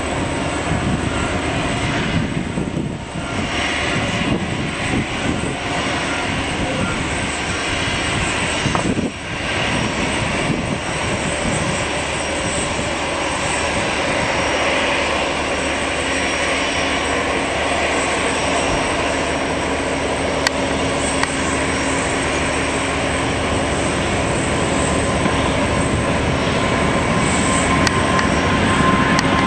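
Boeing 777-200's twin Pratt & Whitney PW4000-series turbofans at takeoff thrust during the takeoff roll: a steady jet engine rumble that grows louder near the end as the airliner speeds past close by.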